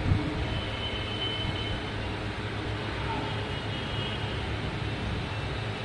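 Steady low hum and noise of the room, with a single knock just after the start as dumbbells are picked up.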